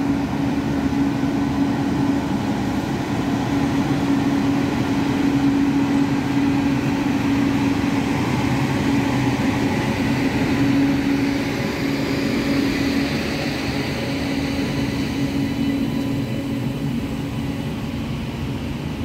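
An Indian Railways WAP-7 electric locomotive and its LHB coaches rolling slowly past as the express departs: a steady hum over the continuous rumble of wheels on track.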